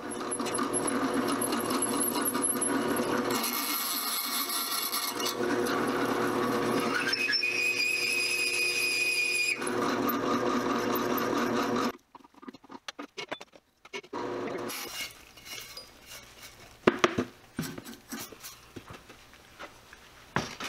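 Drill press running a hole saw through a metal plate: a steady whir with a high squeal from the teeth cutting metal for about twelve seconds, then it cuts off suddenly. A few faint knocks follow near the end.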